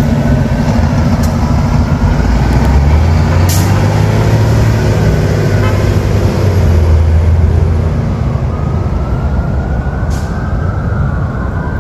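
New Flyer D40LF diesel transit bus pulling away from a stop and accelerating, its engine loud and low, with a brief dip in the engine note about halfway through. A rising whine comes in over the last few seconds.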